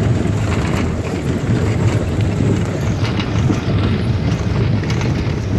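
ATV engine running steadily while riding, a continuous low rumble.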